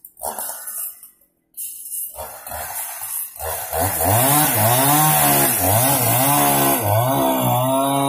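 Chainsaw cutting across a hard, heavy log: the engine comes up to speed about three and a half seconds in, and its pitch dips and recovers again and again as the chain bites into the wood.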